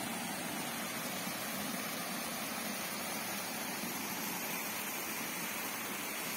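Shallow stream rushing over rock slabs and small cascades, a steady, even hiss of running water.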